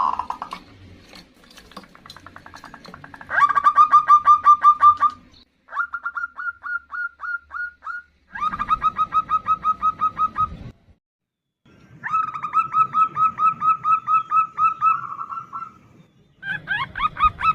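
Female zebra dove (perkutut) giving its rapid stuttering 'nutut' call, a fast run of about eight short notes a second, repeated in several separate bursts of two to four seconds. It is the call a hen uses to answer and draw a male.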